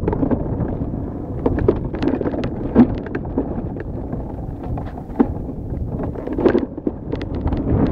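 Hardtail mountain bike descending a rough dirt trail, heard from a camera mounted on the bike's front end: a constant rumble of tyres on dirt and wind on the microphone, with frequent sharp clatters and knocks as the bike hits bumps.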